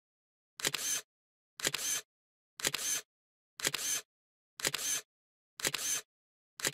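A short, noisy sound effect repeated seven times, once a second, each time identical and under half a second long, with dead silence between.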